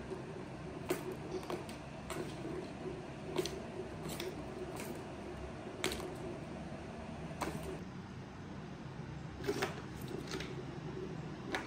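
A plastic ball rolling in the tracks of a plastic tower cat toy as a kitten bats it, with irregular sharp clicks and taps scattered through, over a steady low hum.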